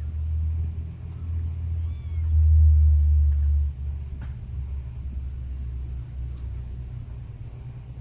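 A kitten mews faintly once, about two seconds in, over a steady low rumble that swells loudest for a second or so in the middle.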